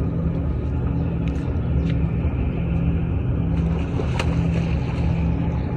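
An engine running steadily at low revs, a droning hum with a few light clicks.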